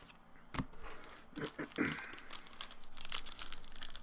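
Crinkling and rustling of a trading-card pack's wrapper being handled and torn, growing denser in the second half, with a single knock about half a second in.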